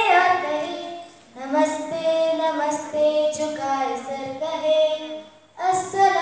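A young girl's voice singing a poem unaccompanied, in melodic phrases with long held notes, with a short break about a second in and another near the end.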